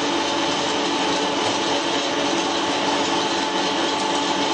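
Flat die wood pellet machine running: a steady mechanical drone with a constant hum.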